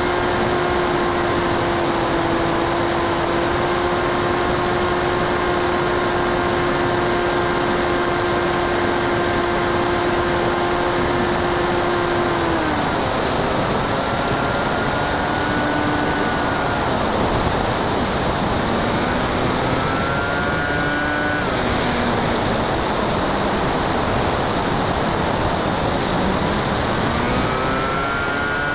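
Brushless electric motor and 9x6 propeller of a Bixler 2 foam RC plane, heard from a camera on the plane over steady wind rush. The motor's whine holds steady, drops about twelve seconds in as the throttle comes back, then rises and falls several times as the throttle is worked.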